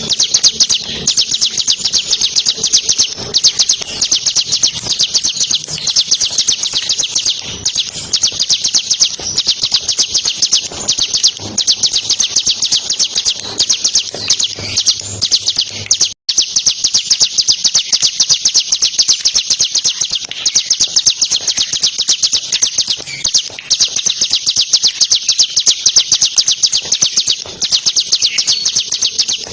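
Bar-winged prinia (ciblek) singing a loud, fast, unbroken chattering trill of high notes, cut off very briefly around the middle.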